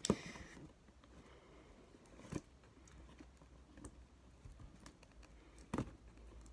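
Faint handling of a cardboard box being opened: scattered light scratches and ticks, with three sharper knocks, right at the start, about two and a half seconds in, and near the end.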